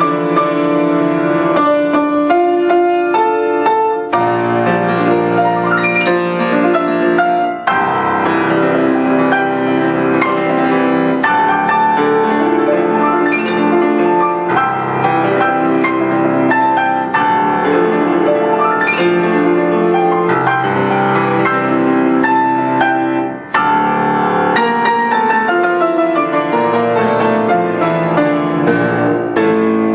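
Background music played on piano: a steady flow of chords and single notes, with a few brief pauses between phrases.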